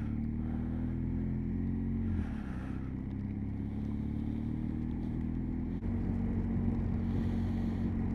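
Motorcycle engine accelerating hard through the gears, its pitch climbing, then dropping at a gear change about two seconds in and again near six seconds, under steady road and wind noise.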